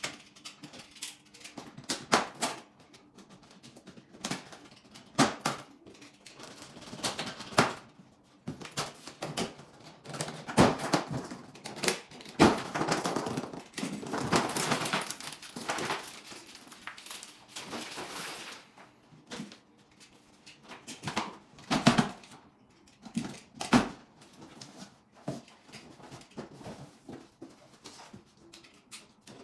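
Green plastic packing straps being cut and pulled off a large cardboard carton, then the carton being slit open with a box cutter: an irregular run of sharp snaps and clicks with scraping and cardboard rustling between them.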